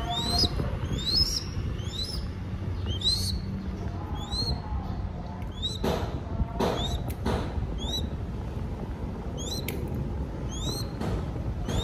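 A crested goshawk chick's begging calls: short, thin, rising squeals repeated about once or twice a second, with a brief pause near the end. A few soft knocks or rustles come in the middle.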